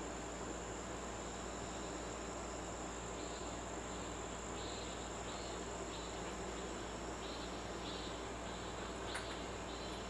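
Insects chirping, a short chirp about every half second starting a few seconds in, over a steady low room hum, with one faint click near the end.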